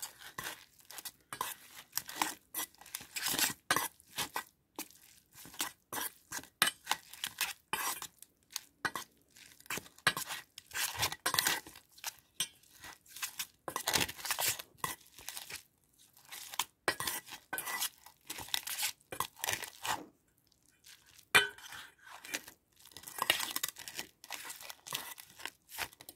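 A utensil scraping and clinking against a stainless steel pan while cooked instant noodles are tossed and stirred to mix in the seasoning, in quick, irregular strokes.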